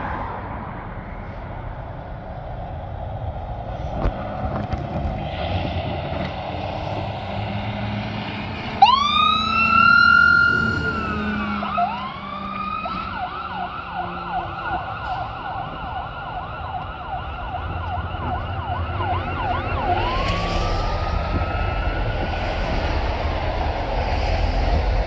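Fire engine's electronic siren on a 2019 Spartan Metro Star pumper passing by over a low diesel and traffic rumble. About a third of the way in the siren wails up, holds and falls, then switches to a fast yelp, and near the end it goes back to a rising wail.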